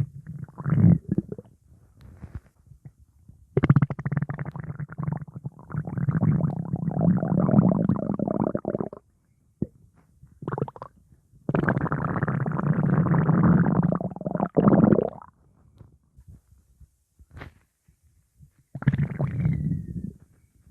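Stomach growling in gurgling rumbles: a few short gurgles, then two long rumbles of about five and four seconds, and a shorter gurgle near the end.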